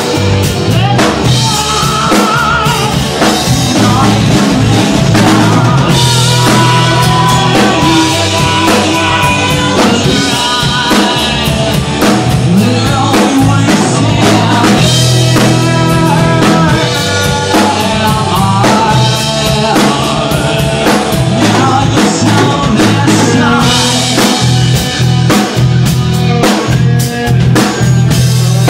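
Rock band music played at full volume: drum kit, electric guitar and bass, with a melodic lead line over them.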